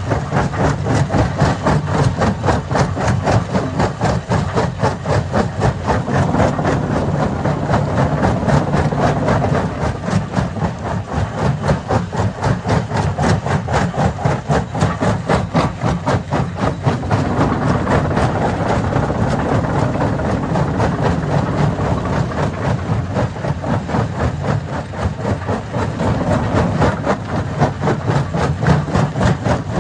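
Hammer stone crusher running steadily, a dense, rapid, even mechanical pulsing that swells and eases slightly but never stops.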